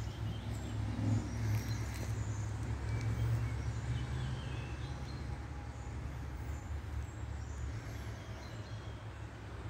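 A steady low rumble, heaviest in the first few seconds, with small birds chirping here and there in the trees.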